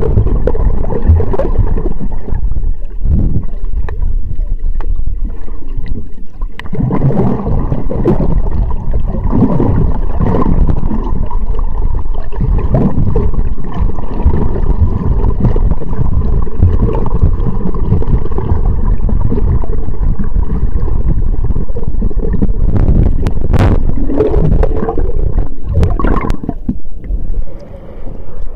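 Loud, muffled rumble and gurgling of water moving around a waterproof camera held underwater by a swimmer. Near the end come a few sharper splashes, and the sound changes as the camera breaks the surface.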